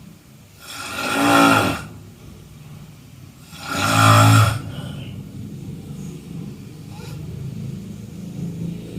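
A person snoring: two loud snores, each about a second long and about three seconds apart, followed by a quieter steady low sound.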